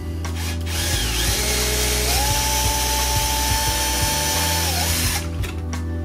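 Cordless drill boring a hole into the plastic frame of a washing-machine door. The motor whine climbs in two steps over the first couple of seconds, holds steady, then winds down and stops near the end.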